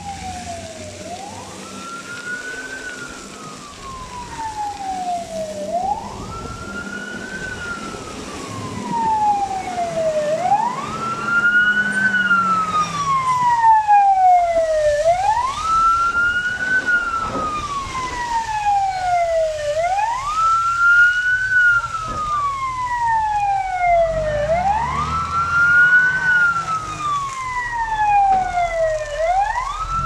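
Fire engine's wailing siren, each cycle rising quickly and then falling slowly, repeating about every four to five seconds. It grows steadily louder over the first ten seconds or so, with a low engine rumble underneath.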